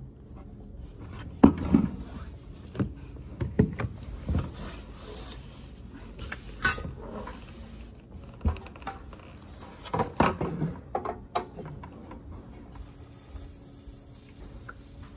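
Irregular knocks, clunks and scraping of a plastic bucket being handled and set under a cast-iron radiator, with one sharp click near the middle.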